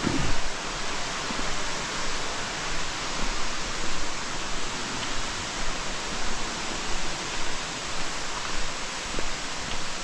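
Steady rush of water.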